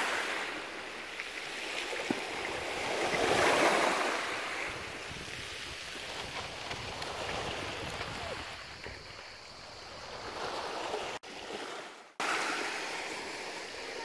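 Gentle sea waves washing onto a pebble shore, swelling twice in the first few seconds and then settling to a steady wash. The sound cuts out for about a second near the end.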